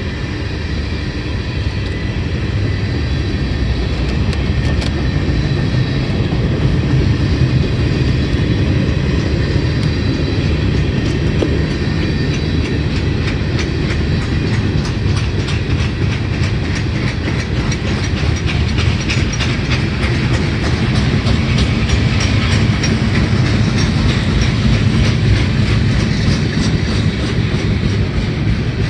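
Freight train's tank cars and container flatcars rolling past, loud and steady. The wheels rumble on the rail and click rapidly over the rail joints, and the clicking grows busier about halfway through.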